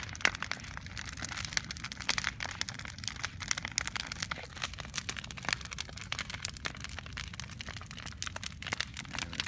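Large wood bonfire crackling and popping: irregular sharp snaps over a low steady rumble, with one loud pop just after the start.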